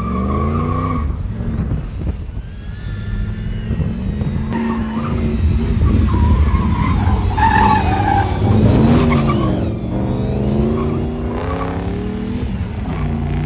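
Third-generation Pontiac Firebird on an autocross course: the engine revs rise and fall through the turns while the tires squeal, loudest around the middle.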